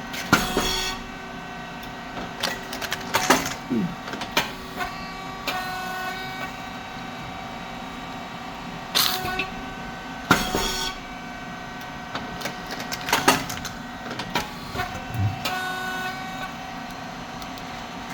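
SYP5310T puffed rice cake machine running its press cycle: a steady hum from its pump motor and fan under loud sudden pops with a hiss, returning about every ten seconds, with clicks between as the cylinder and valves work.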